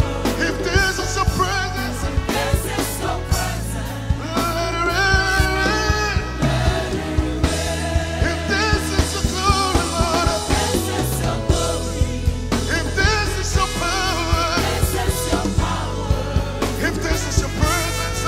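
Live gospel worship band playing with singing: drums keeping a steady beat under bass, keys and voices.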